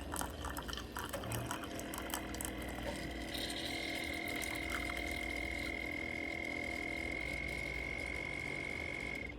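Keurig K-Express Essentials single-serve coffee maker near the end of its brew: a steady running and liquid-filling sound as coffee trickles into the cup, joined about four seconds in by a high steady whine. This is the sound that means the brew is almost done; it stops just before the end.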